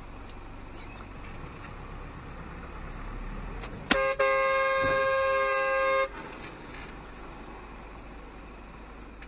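A vehicle horn sounds for about two seconds, starting sharply about four seconds in with a short break just after it begins, over steady road and engine noise in a moving vehicle.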